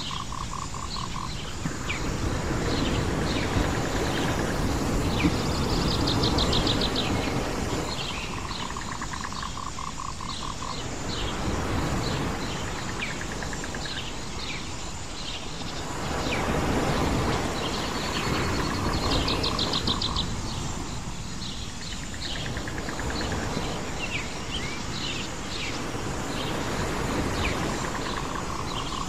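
Island nature ambience: many birds chirping, with a high rapid trill twice and a pulsing trill about a second in. Underneath, a rushing background swells and fades every several seconds.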